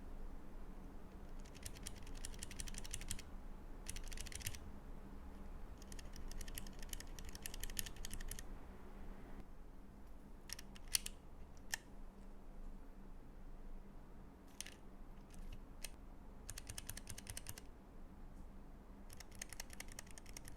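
Keys on a Keychron K3 low-profile mechanical keyboard with optical switches, brown and red, clicking: several bursts of quick keystrokes lasting one to two seconds, with a few single separate key clicks in the middle.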